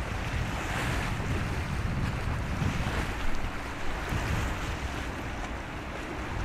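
Wind buffeting the microphone in uneven gusts over a steady hiss of sea waves.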